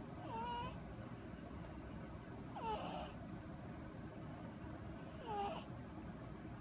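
Domestic cat snoring in its sleep: three short breaths about two and a half seconds apart, each with a hiss and a thin whistle that bends in pitch.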